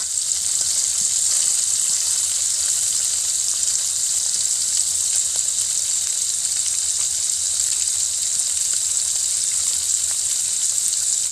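Small fish frying in hot oil: a steady high sizzle with scattered faint pops, cutting off suddenly at the end.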